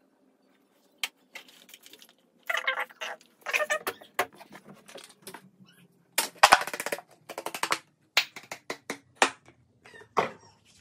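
Toiletry bottles and caps being handled: a run of irregular clicks, taps and light rattles, with a few short louder rustling bursts.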